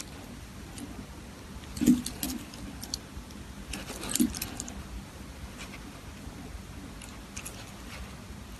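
Scattered light metallic clicks and clinks of a wristwatch and its metal bracelet being handled, the loudest about two seconds in and again about four seconds in.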